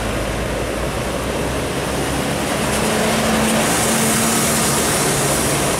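Diesel engine of a heavily loaded Isuzu Giga FVZ truck labouring uphill through a bend, a steady low drone with a wash of noise. It grows a little louder and brighter about halfway through as the truck comes close by.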